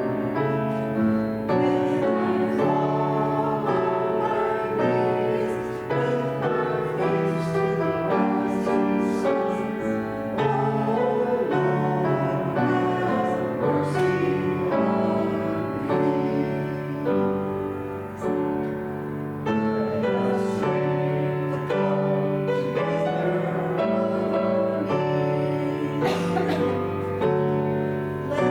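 Slow keyboard music in held chords, changing about once a second.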